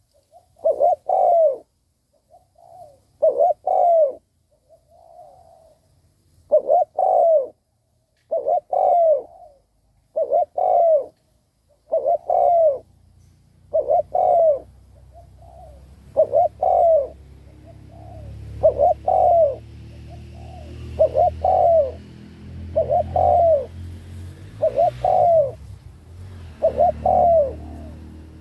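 Spotted dove cooing over and over in its 'gù' call, short paired notes that slide down in pitch, about one phrase every two seconds. This is the decoy-bird call used to rouse wild doves. A low, steady hum comes up under it about halfway through.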